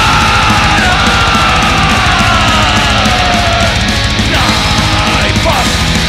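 Heavy metal band playing live with dense drumming and distorted guitars, the vocalist holding one long yelled note that slides down in pitch over about four seconds, then two shorter cries near the end.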